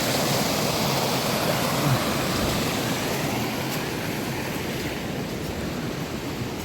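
Water of a waterfall rushing in a steady, even noise that grows slowly fainter.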